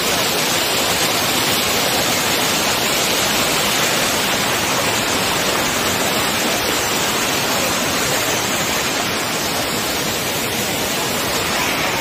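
Waterfall rushing over rocks close by, a steady, even rush of water that does not change.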